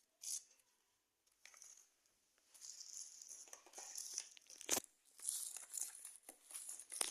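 Plastic packaging being torn open and crinkled by hand: a short rasp, then a longer stretch of tearing and crackling from about halfway in, with a couple of sharp snaps.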